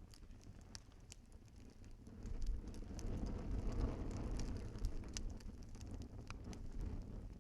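Fire in a fireplace crackling with scattered sharp pops, over a low rumble of flames that swells about two seconds in and eases off toward the end.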